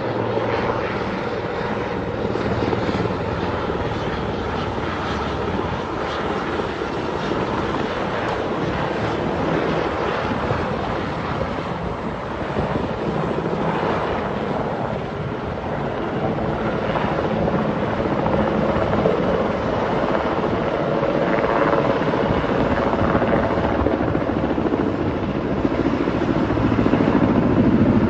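Helicopter rotor and engine running steadily, growing louder over the last few seconds.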